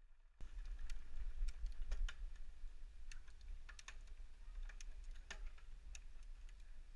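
Mountain bike riding over rough ground: irregular clicks and rattles from the bike and tyres, over a low wind rumble on a helmet-mounted microphone. The sound cuts in suddenly about half a second in.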